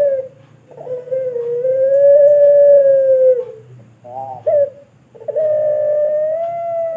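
Puter pelung, a domestic Barbary dove bred for a long coo, cooing: two long drawn-out notes of about three seconds each, the pitch rising slightly then sliding down, with a short clipped note between them.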